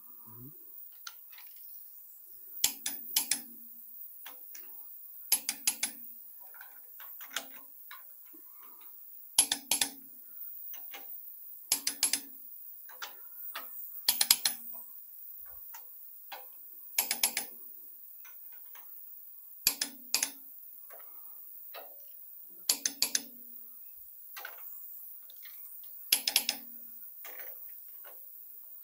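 Torque wrench on the Ford 302's cylinder head bolts: about ten short bursts of sharp metallic clicks, one every two to three seconds, as the wrench is pulled on each bolt in turn.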